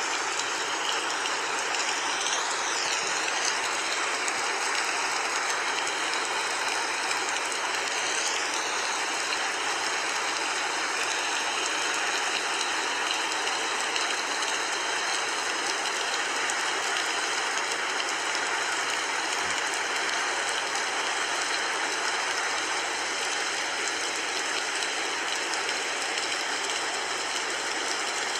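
Steady, even hiss of noise, like a rain or white-noise bed, with faint high wavering tones twice in the first nine seconds or so.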